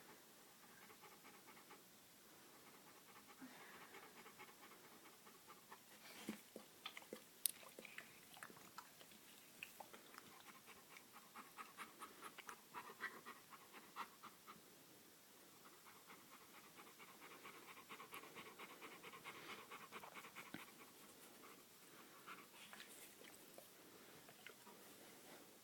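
Faint snoring and heavy breathing of a sleeping dog, each breath a rapid rattling flutter. A few sharp clicks come about six to eight seconds in.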